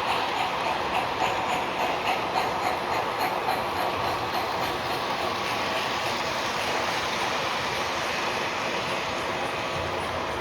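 O gauge model train running on a small loop of track, its wheels rolling with a quick clicking over the first half that then settles into a steady running sound.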